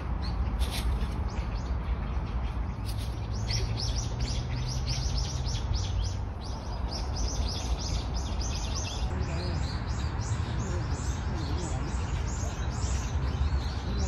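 Birds chirping in quick, repeated short notes that grow busier from about three seconds in, over a steady low background hum.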